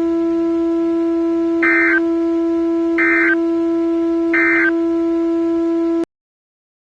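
Emergency Alert System end-of-message data bursts: three short, buzzy digital bursts about a second and a half apart, over a steady low drone. Everything cuts off abruptly about six seconds in.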